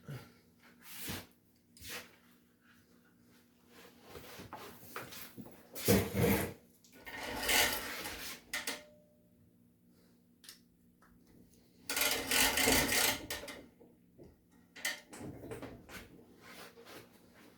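Intermittent rubbing and scraping in several short spells of a second or so, with a few light knocks between them.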